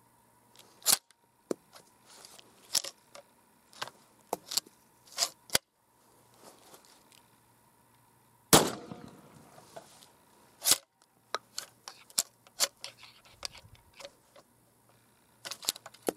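Homemade reverse-cycle pump-action shotgun being worked: a string of sharp metal clacks from the action being cycled, and one shot about halfway through with a trailing echo, followed by more clacks of the action.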